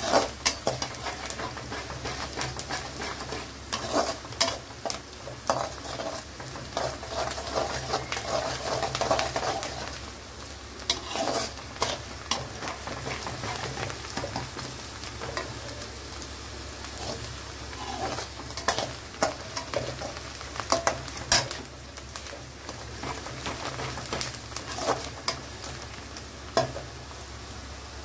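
Chopped onion and garlic sizzling in hot oil in a metal kadhai, frying towards light brown, while a perforated metal spatula stirs them, scraping and clicking against the pan many times.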